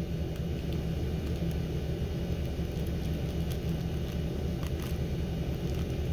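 Steady low background hum, with a few faint light ticks as a small model plane is handled and its wing bent.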